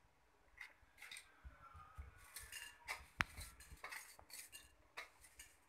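Faint clinks and taps as fenugreek seeds are dropped by hand from a steel plate into a small nonstick frying pan, with one sharper click about three seconds in.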